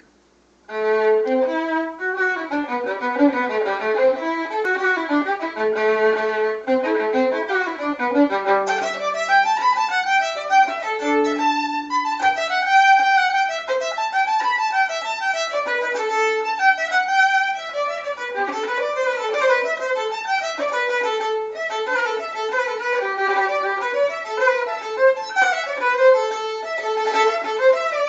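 Solo violin playing a Celtic fiddle tune, a continuous melody of quick running notes with a few longer held ones, starting about a second in.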